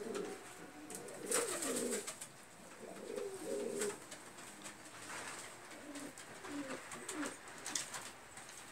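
Domestic pigeons cooing in short, repeated bouts in a loft, a cock courting a hen, loudest in the first half. Near the end there are quick wing flaps and a few light scuffs.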